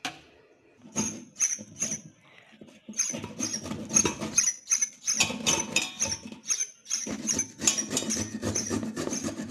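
Carrots being grated by hand on a flat steel grater: a rasping scrape with each stroke. A few separate strokes come about a second in, then steady strokes at roughly three a second from about three seconds in.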